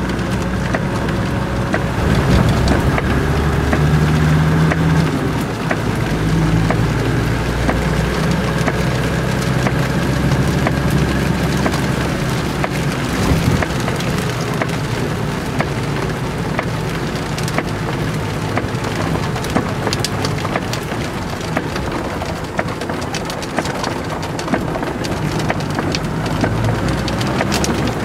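Heavy rain falling on a car's roof and windscreen, heard from inside the cabin as many small ticks over a steady hiss, with the car's engine humming low and steady underneath.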